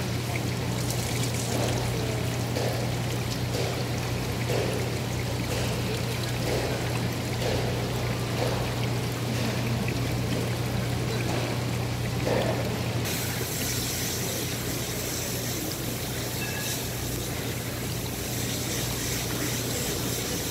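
Water pouring and splashing over a basket of live spoon worms in a seafood tank, with a steady low hum underneath.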